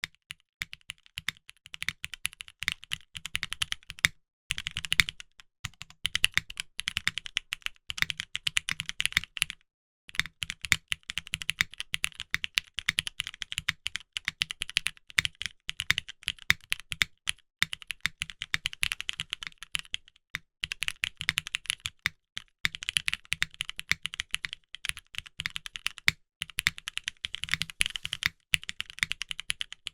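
Fast, continuous typing on a custom top-mount TKL mechanical keyboard with a polycarbonate plate and GMK keycaps, many key clicks a second, pausing briefly twice.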